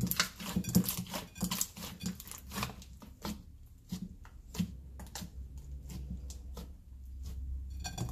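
Green fluffy slime made with toothpaste being squeezed and kneaded by hand in a glass bowl, giving a quick run of sharp wet clicks and squelches. The clicks come thick and fast in the first half and more sparsely after.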